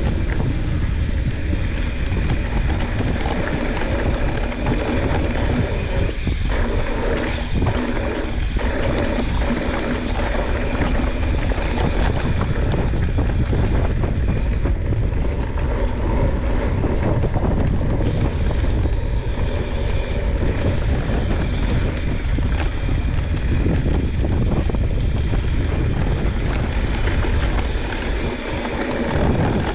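Wind buffeting the camera microphone and 2.4-inch tyres rolling over a dry dirt trail as a YT Jeffsy 29 mountain bike descends at speed. A few knocks from bumps come around six to eight seconds in.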